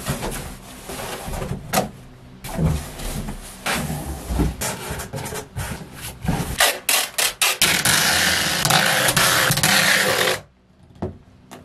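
Large cardboard moving box being assembled by hand: knocks and rustles of the cardboard as the flaps are folded, then a continuous loud scraping for about three seconds that cuts off abruptly.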